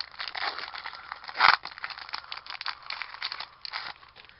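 Trading card pack wrapper crinkling as it is torn open and handled, with one sharp, louder crackle about a second and a half in. The crinkling stops near the end.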